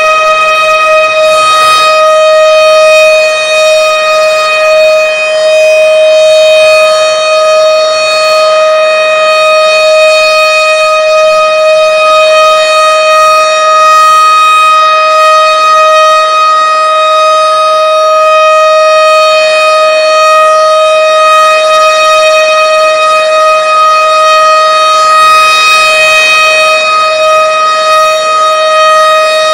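Several outdoor warning sirens of the tornado/air-raid kind sounding together, loud and holding one steady high tone without winding up or down.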